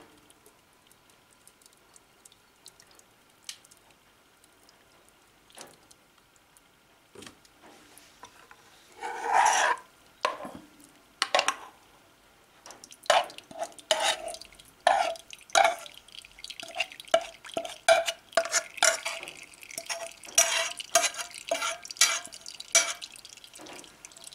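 Thick boiled coconut-flake and milk mash being poured from a saucepan into a cheesecloth strainer, with a soft splash, then a metal spoon scraping and clinking against the saucepan in a quick run of ringing strokes as the rest is spooned out.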